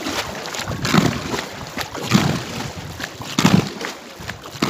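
Rowboat being paddled on a lake: three splashing paddle strokes in the water a little over a second apart, with water sloshing against the hull between them.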